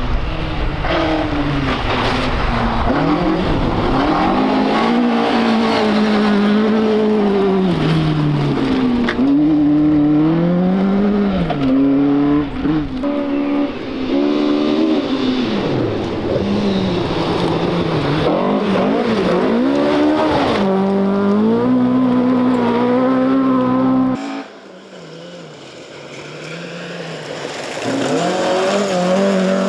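Rally car engines at full stage pace: the engine note climbs and drops over and over as the driver revs hard, changes gear and lifts for bends. About 24 s in the sound cuts to a quieter one, and another rally car's engine grows louder as it approaches.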